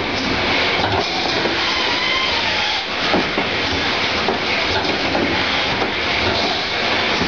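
Semi-automatic eight-nozzle pouch gel filling machine running: a steady mechanical clatter with a hiss and scattered sharp clicks.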